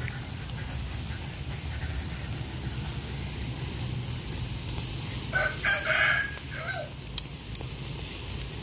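A rooster crows once, about five seconds in: a call of roughly a second and a half in several parts, the loudest sound here. Under it runs the steady hiss of meat sizzling over a charcoal grill, with a few sharp clicks just after the crow.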